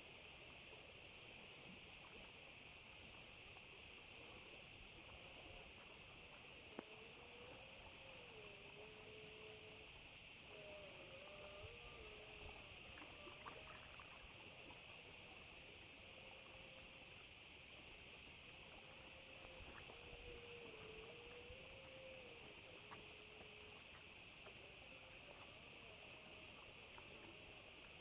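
Near silence at the waterside: a faint, steady insect chorus drones continuously, with a faint wavering tone that shifts up and down in pitch beneath it and a few soft clicks.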